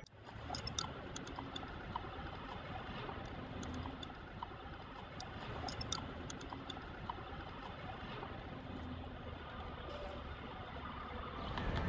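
Steady city street traffic noise: an even hum of passing vehicles, with faint small clicks scattered through it.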